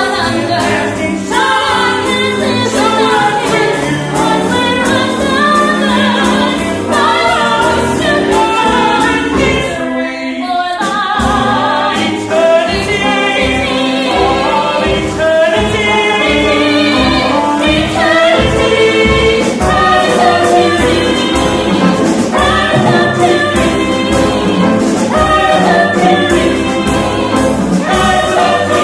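A musical-theatre song: several voices singing together over a live pit band, with a brief pause about ten seconds in.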